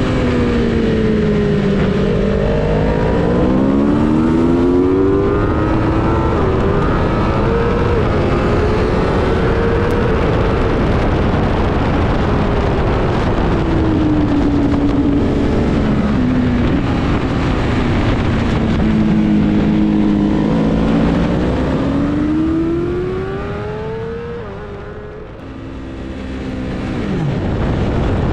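BMW S1000RR race bike's inline-four engine heard from onboard at racing speed, with wind rush. The revs climb in steps through upshifts under throttle and fall away under braking, several times over; about three-quarters through it drops off sharply and goes quieter before climbing hard again.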